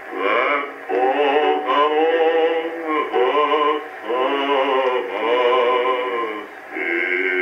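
Male vocal quartet singing a sentimental old song in close harmony, held notes with vibrato in short phrases. It comes from an Edison electrical disc record played back on a phonograph. The sound is thin, with no deep bass and little treble.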